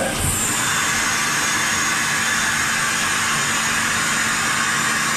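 Kia H63 horizontal machining centre's indexing pallet table rotating, a high whine coming in just after the start, dipping slightly in pitch and then holding steady over the machine's steady hum.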